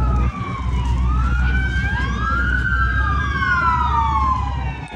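Police car sirens wailing: two or more overlapping tones that rise and fall slowly, over a low steady rumble.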